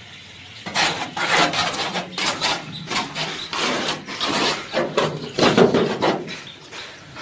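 Irregular rough scraping and rubbing strokes against thin sheet metal, from a brush spreading glue over a deep freezer's rusty metal cabinet panel and the thin inner metal liner sheet being flexed and handled.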